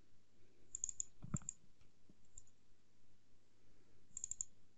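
Computer mouse clicking in quick clusters of double-clicks: a few about a second in, one more a little later, and a rapid run of four near the end, over a faint low hum.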